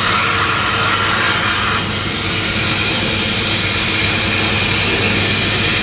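Thaco EZ50S wire-cutting EDM machine running: a steady hiss with a low hum underneath.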